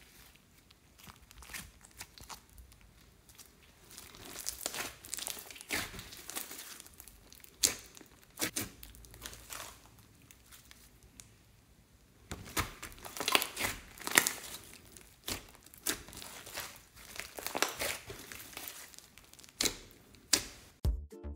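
Thick slime being stretched, pressed and poked by hand, giving sticky crackles and pops in irregular clusters. The pops are sparse for a few seconds midway and come thickest in the second half.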